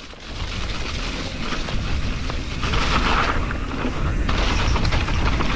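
A 2019 YT Capra full-suspension mountain bike riding down a slippery, muddy trail: wind buffets the GoPro microphone as a constant low rumble, over hiss from the tyres and scattered small rattles and ticks from the bike. The hiss grows louder for a second or two in the middle.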